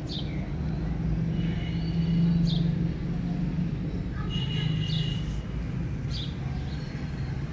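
Steady low hum of traffic or an engine, with several short, high chirps of small birds scattered over it.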